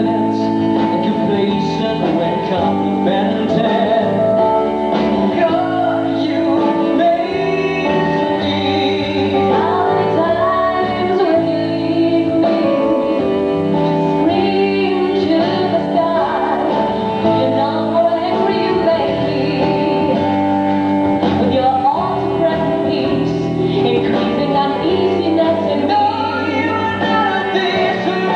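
A man and a woman singing a duet over guitar-led band accompaniment, a song performed live on stage.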